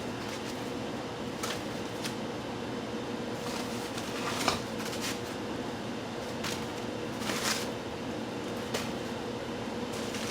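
Packing being handled and lifted out of a shipping box: scattered rustles and light knocks, the sharpest about four and a half seconds in, over a steady room hum with a faint constant tone.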